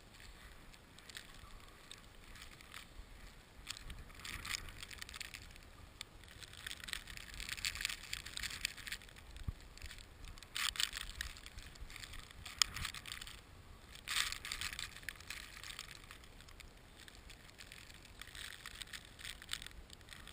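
Snowstorm: a hiss of wind-blown snow that swells and fades in gusts, with a few sharper gritty peaks.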